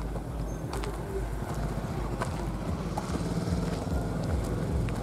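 An engine idling with a low, uneven rumble that grows a little louder toward the end.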